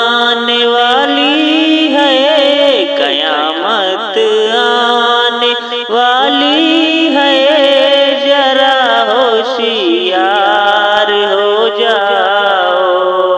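Devotional naat music: layered voices singing a long melismatic vocal passage with sliding, ornamented pitch, with no sung words recognised.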